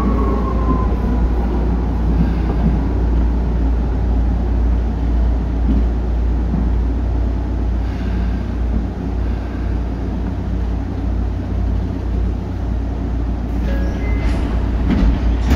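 Tokyu 8500 series electric train running on the subway line, heard from inside the car. The Hitachi traction motors' whine falls in pitch and fades in the first second, then the steady low rumble of the wheels and car carries on. A few brief high tones and clicks come near the end.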